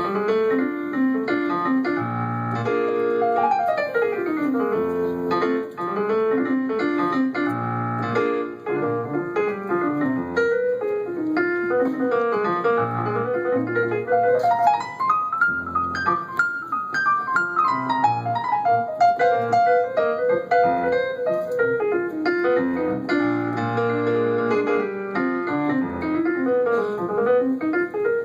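Piano solo in the instrumental break of a song, with runs that climb and fall over low bass notes.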